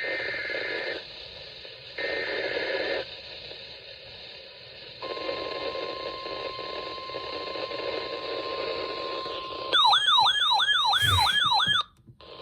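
EAS alert on a NOAA Weather Radio broadcast, heard over radio static. First come two one-second screeches of SAME digital header data, a second apart. A few seconds in, the steady 1050 Hz warning alarm tone starts. Near the end a louder warbling siren-like alarm, about four whoops a second, sounds for two seconds and stops abruptly.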